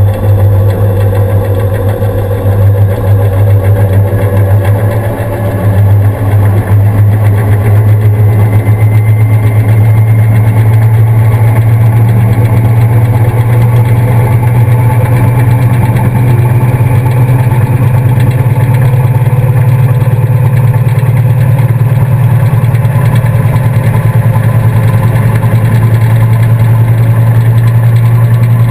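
Washing machine drum and motor spinning, heard from inside the drum: a loud, steady low hum with a whine that slowly rises in pitch as the spin speeds up.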